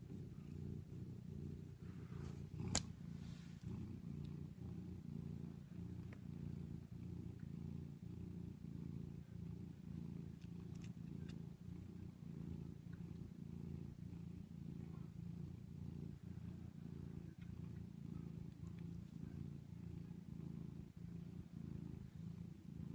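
Cats purring steadily: a tabby mother cat nursing her litter of kittens. A single sharp click about three seconds in.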